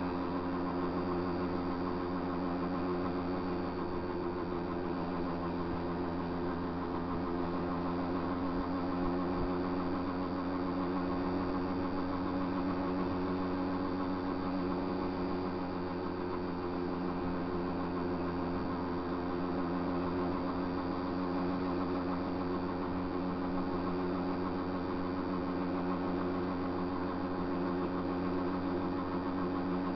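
Small motorbike engine running steadily at cruising speed, holding an even pitch with no revving.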